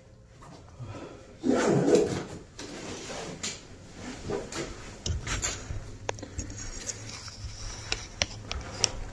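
A loud scraping rub about a second and a half in, followed by scattered knocks and clicks of objects being handled and moved.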